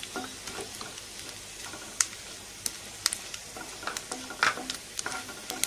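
Small pieces of coconut frying in ghee in a nonstick pan, a steady low sizzle. A wooden spatula knocks against the pan about six times.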